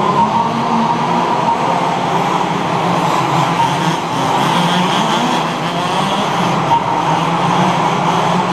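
Several 1:5-scale HPI Baja RC buggies with small two-stroke petrol engines running at once, their engine notes overlapping and wavering in pitch as they race.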